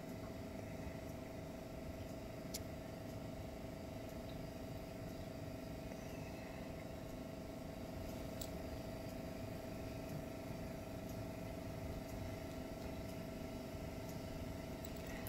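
Steady background hum with a constant mid-pitched tone running through it, and two faint clicks, about two and a half and eight seconds in.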